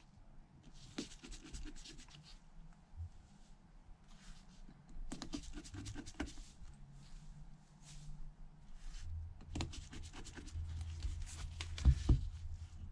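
Precision screwdriver tip clicking and scratching on the tiny screws as they are driven into the metal backplate of an iPhone SE (2nd gen) screen assembly, with a couple of louder knocks near the end.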